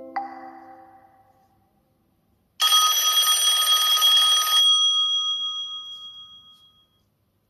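OnePlus 10 Pro ringtone playing: a short chime fades out, then after a brief pause a sudden high ringing sounds for about two seconds and dies away over the next two.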